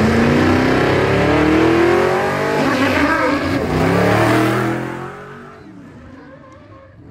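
Vintage fire truck's engine accelerating hard, its pitch climbing, dropping once about two and a half seconds in and climbing again. The engine noise falls away sharply about five seconds in.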